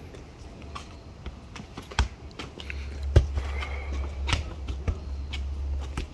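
A small rubber ball kicked and bouncing on asphalt: a series of sharp knocks at irregular intervals, the loudest about three seconds in. A low rumble sits underneath from about two and a half seconds in.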